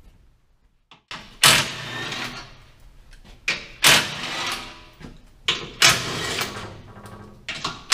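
Cordless ratchet running in about five short bursts, each starting sharply and lasting a second or less, undoing 13 mm bolts on a car's under panel.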